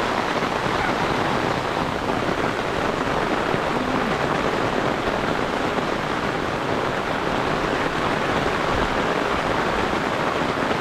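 Heavy rain pouring down steadily, an even unbroken hiss.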